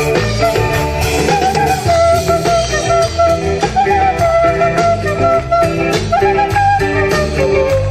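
Instrumental break of a band playing a romantic Latin dance song: a melody carried over guitar and a steady percussion beat, with no singing.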